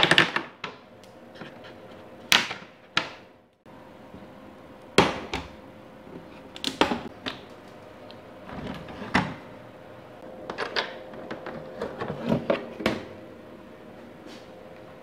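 Plastic fairing panels of a Ducati 916 being unfastened and pulled off by hand: irregular sharp clicks, knocks and plastic rattles, over a faint steady hum.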